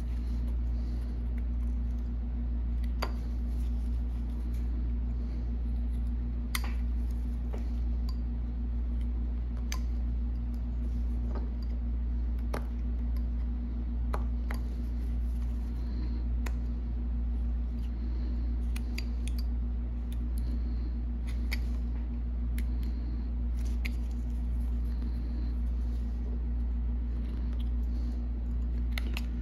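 Carving knife slicing small chips from a block of wood by hand, heard as irregular short snicks and scrapes. A steady low hum runs underneath and is the loudest sound.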